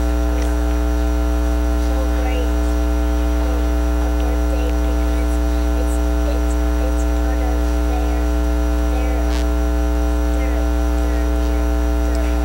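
Loud, steady electrical mains hum with a ladder of overtones, filling the recording, with faint voices beneath it at times.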